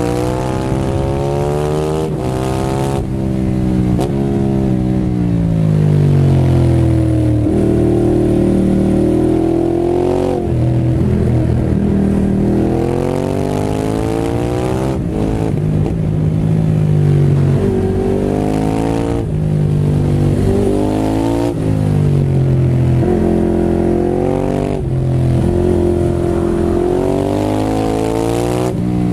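Ducati Hypermotard 821 SP's L-twin engine through a full Termignoni exhaust with dB eater, heard from on the bike. The engine note climbs under throttle and falls away again, over and over, as the bike accelerates and backs off between bends.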